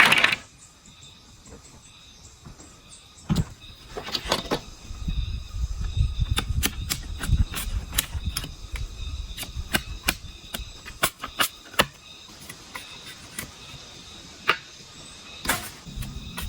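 Bamboo being worked by hand: irregular knocks and clacks, with a loud one right at the start and a quick run of them in the middle, over a low rumble for a few seconds.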